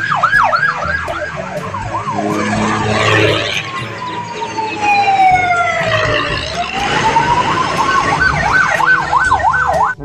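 Electronic siren on a road convoy: fast yelping sweeps, switching midway to one slow wail that falls and then rises, then yelping again, over the low rumble of a heavy tracked armoured vehicle's engine.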